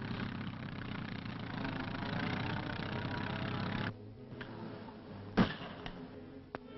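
Crawler tractor engine running steadily, cutting off abruptly about four seconds in. About a second and a half later an axe bites into a log with one loud chop, followed by a couple of fainter knocks.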